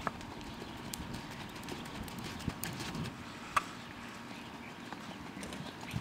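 Hoofbeats of a purebred Arabian mare trotting on arena sand, soft and muffled, with a few sharp clicks in between.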